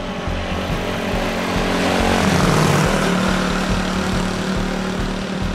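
Honda Super Cub 90's small single-cylinder four-stroke engine running steadily at cruising speed, with wind rushing over the microphone. A louder rush of noise swells and fades between about two and three seconds in.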